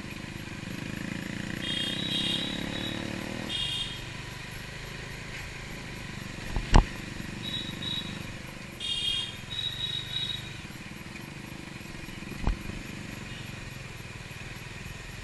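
Motorcycle engine running on the ride, its note dropping about three and a half seconds in. A few short high chirps come through, and there are two sharp knocks, the first and louder one about halfway through.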